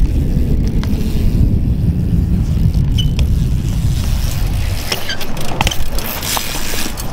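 BMX bike being ridden: a steady low rumble of tyres rolling on hard ground, with a few sharp clicks and knocks in the last couple of seconds.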